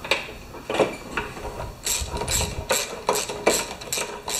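Ratchet wrench on a spark plug socket clicking as the spark plug is backed out of a Briggs & Stratton Quantum lawn mower engine. There are a few spaced clicks, then a quicker run of clicks from about two seconds in.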